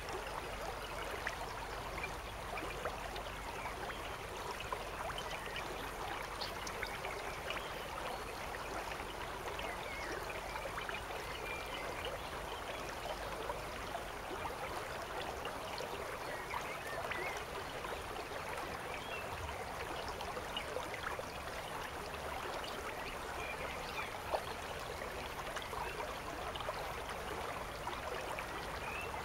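River water running steadily, a continuous even rush of flowing water.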